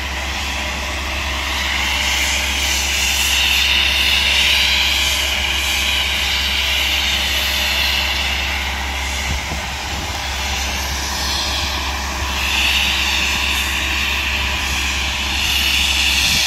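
A wheeled tree-trimming boom machine running, its engine humming steadily under a high whine that swells and fades three times.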